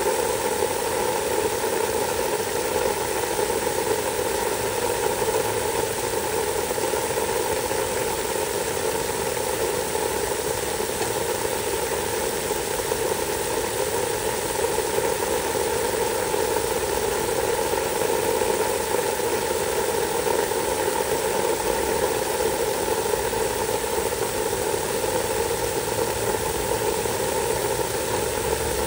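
Water spraying steadily onto charred bark mulch, with a constant mechanical hum under the hiss of the spray.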